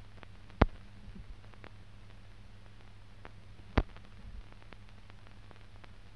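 Steady hiss and low hum of an old film soundtrack with no programme sound, broken by two sharp clicks about three seconds apart.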